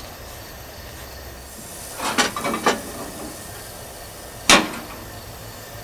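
Metal waffle iron being handled: a short run of clattering and scraping about two seconds in, then one sharp metallic clank a little past the middle, over a steady background hiss.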